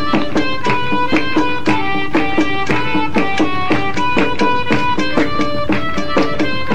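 Instrumental background music: a quick, steady run of pitched notes, each struck sharply and fading.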